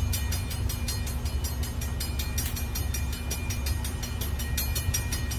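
Diesel freight locomotives passing, their engines giving a steady low rumble, with rapid, evenly spaced clicking over it.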